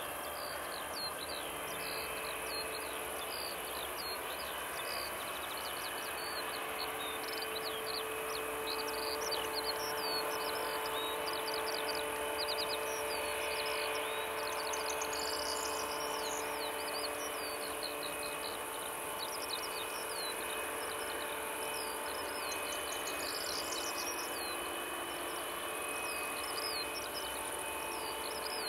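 Steady hum and faint whine of a Boeing 757-300's jet engines at taxi power, under a constant chatter of small birds chirping. The engine sound swells a little in the middle.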